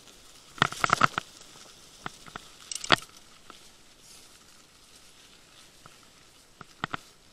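A plus-tyre mountain bike ridden over snow: three short bursts of crackling and clicking, about a second in, about three seconds in and just before the end, with quiet riding noise between them.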